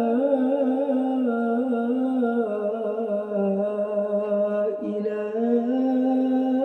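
A man's voice chanting the adhan (Islamic call to prayer), holding one long, winding melismatic note on "lā" in "ashhadu an lā ilāha illallāh", with a short break in the line about five seconds in.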